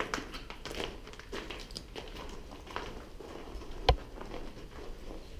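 Footsteps crunching and scuffing over gritty plaster debris on a floor, in an uneven walking rhythm. A single sharp knock about four seconds in is the loudest sound.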